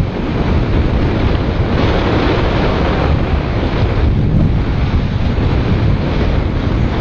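Strong wind buffeting the microphone over the steady rush of sea waves around a boat.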